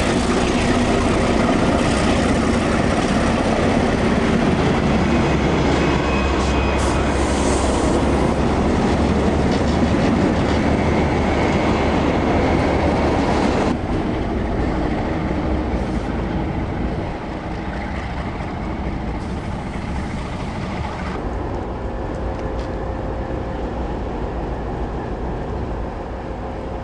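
Passenger train rolling past close by, its cars and power car rumbling and clattering on the rails. About halfway through it cuts to a quieter, steady running sound as the train's diesel locomotive comes slowly in.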